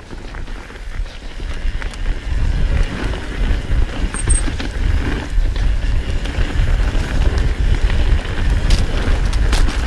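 Mountain bike descending a rough trail at speed: wind buffeting the helmet camera's microphone and the tyres rumbling over dirt and rock, louder from about two seconds in, with a few sharp clacks near the end.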